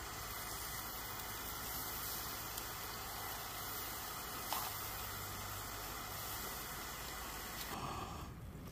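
A Fire Maple Star X2 backpacking gas burner running under a frying pan with a steady hiss, dropping a little near the end.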